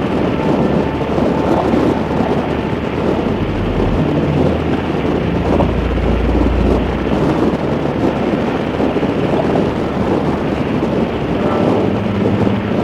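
Harley-Davidson V-twin motorcycle cruising at road speed: a steady engine rumble under heavy wind noise on the microphone.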